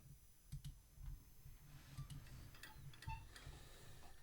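Faint, irregular clicks of computer keyboard keys being typed, over a low steady hum.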